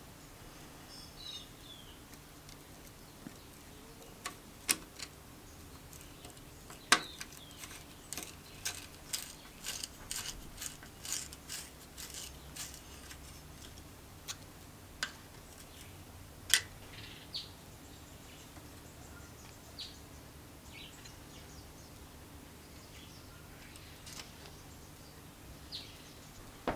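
Scattered light clicks and taps of hand tools and small metal parts being handled and fitted while a Kohler K301 engine is being assembled. A quick run of clicks comes around the middle.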